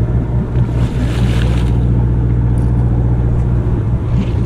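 Sportfishing boat's engines running with a steady low hum, with some hiss from wind and water over it, stronger about a second in.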